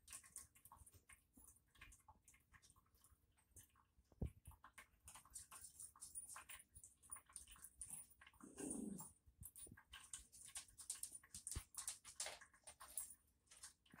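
A dog lapping water from a pet drinking fountain: a faint, irregular run of small wet clicks. A brief low sound comes about eight and a half seconds in.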